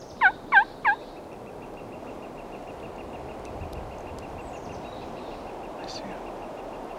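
Wild turkey yelping: three loud, short, evenly spaced yelps in quick succession about a second in. A faint, steady, high-pitched pulsing trill runs on afterwards.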